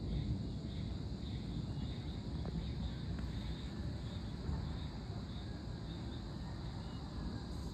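Insects, such as crickets, chirping in a faint, high, pulsing trill over a low, steady rumble of wind and the distant thunderstorm.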